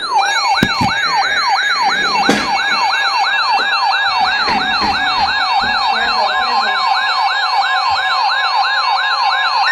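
Electronic siren-like alarm: a rapid falling whoop repeating about four times a second, with a steady beep tone joining underneath in the last few seconds.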